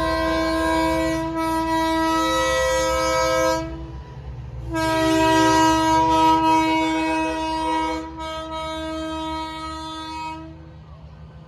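Air-powered train horn on a passing semi truck sounding a chord of several tones in two long blasts, the second longer and louder, over the low rumble of truck engines.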